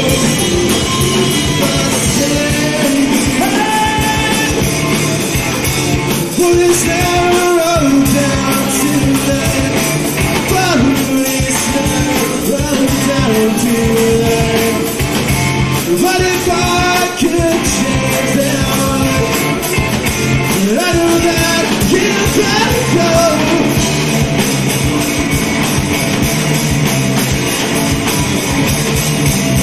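Rock band playing live, a singer's voice carried over the full band, loud and continuous.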